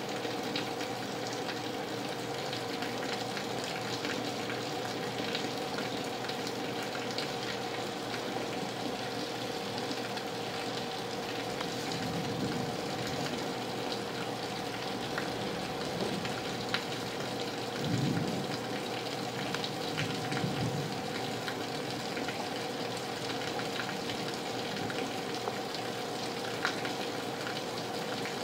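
Heavy rain falling steadily, with scattered sharp drips from leaky gutters. A faint steady hum runs underneath, and a few brief low rumbles come in the middle.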